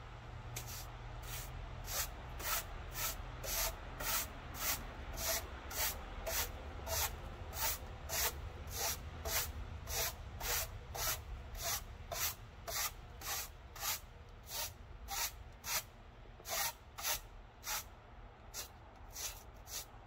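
A broom sweeping snow off a flatcar deck in brisk, scratchy strokes, about two a second, with a few short pauses near the end. A steady low rumble runs underneath.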